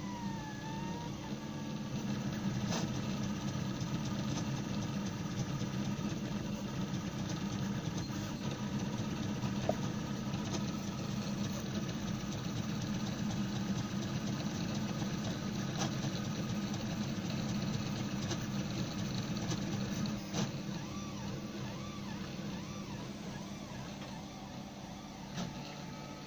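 CTC i3 Pro B Prusa-clone 3D printer printing: its stepper motors and fans make a steady whir as the print head moves, with a few short tones gliding up and down and faint clicks now and then.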